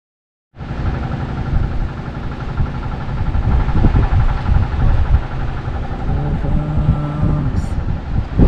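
Wind buffeting the microphone on an exposed sea cliff top: a heavy, gusting rumble, over a faint steady hum.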